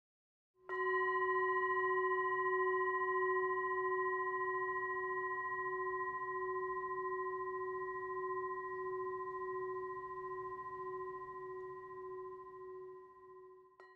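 A singing bowl struck once, about a second in, ringing with a low tone and several higher ringing tones above it that fade slowly with a gentle wobble, then cut off abruptly near the end.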